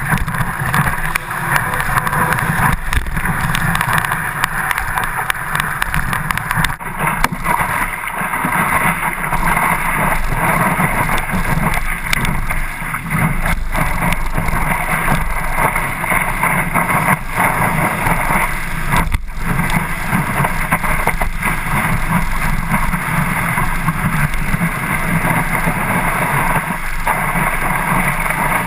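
Water rushing and spraying around a stand-up paddleboard as it rides a wave, with wind buffeting the microphone; a steady, loud rush with no pauses.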